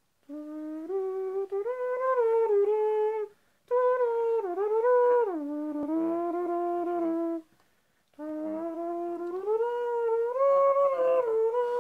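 A person humming a slow melody in three long phrases with short breaths between them, each note held and sliding into the next.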